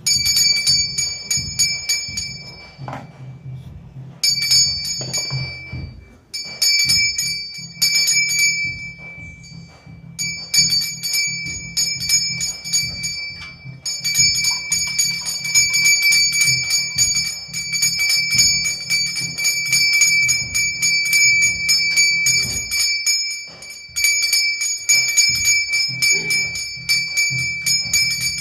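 Brass puja bell rung rapidly during aarti: a fast, continuous jangle of clear ringing tones, broken by short pauses a few times in the first half and then kept up without a break.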